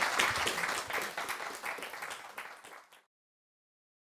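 Audience applauding, the clapping fading away and cutting off to dead silence about three seconds in.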